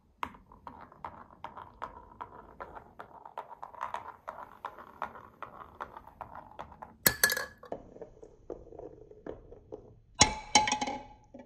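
A glass marble rolling along the zigzag groove of a wooden wave-slope marble run, with a steady rolling hum and a knock about three times a second as it strikes the groove walls at each bend, and one sharper knock about seven seconds in. Near the end it drops into a paper cup and clatters and rattles around inside.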